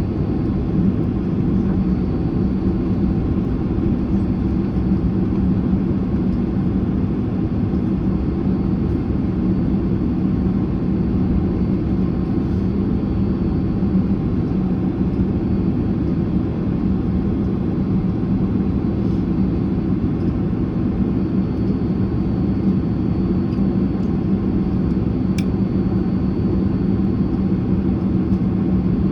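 Cabin noise of a Boeing 767-300ER parked at the gate with its General Electric CF6 turbofan engines still idling before shutdown: a steady low rumble with a faint thin high whine. There is one brief click about 25 seconds in.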